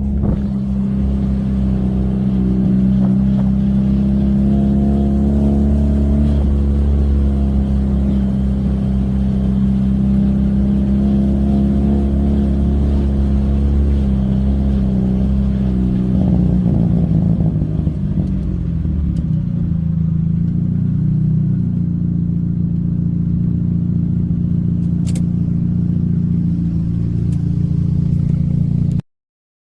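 Supercharged Saturn Ion Redline's four-cylinder engine, heard from inside the car, running steadily at an even speed. About 17 seconds in the pitch shifts and settles lower, then holds steady until the sound cuts off abruptly near the end.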